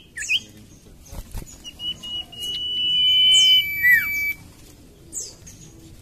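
Iora (cipoh) singing: a few short whistles, then a long, steady high whistle about two seconds in that steps down to a lower held note and ends in a falling slur around four seconds in, with a few brief high sweeping notes.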